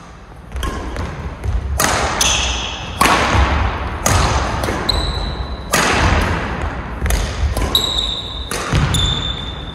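Badminton rally: rackets strike the shuttlecock in sharp, echoing hits about every second or so, with short squeaks of shoes on the court floor between them.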